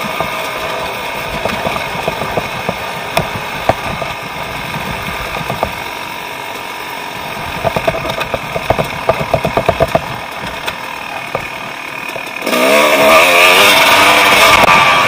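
Dirt bike engine running under the rider's throttle on a trail ride, with a run of sharp knocks and pops in the middle. A little past halfway it opens up and gets louder, its pitch rising as the bike accelerates.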